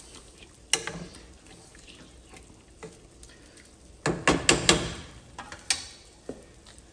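Wooden spoon stirring chicken pieces and tomatillo salsa verde in a metal pot. There is one click near the start and a quick run of knocks about four seconds in, over a faint hiss.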